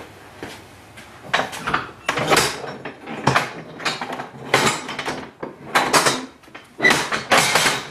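Folding workbench being handled: a run of irregular knocks, scrapes and clatter, like hinged parts and boards being moved. The noises come thicker and louder from about a second in.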